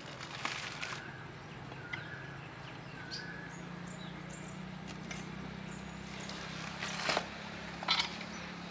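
Coconut husk crunching and tearing as it is levered off on the spike of a hand-operated dehusking tool, in a few short rasping bursts: about a second in, then twice near the end. A steady low hum runs underneath, and a bird repeats a short chirp in the first few seconds.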